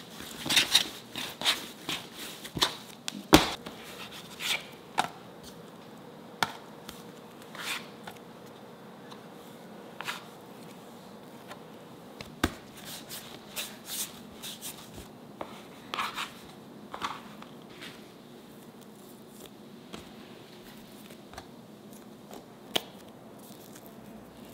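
Hands rolling and handling soft bread dough on a wooden cutting board: scattered soft pats, taps and light scrapes. They are busiest in the first few seconds, with a sharper knock about three seconds in, and become sparser after that.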